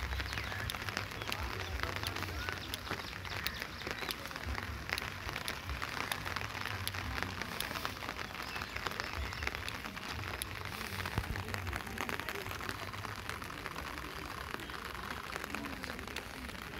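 Steady rain falling on paving and trees, with many separate drops ticking close by, over a deep rumble.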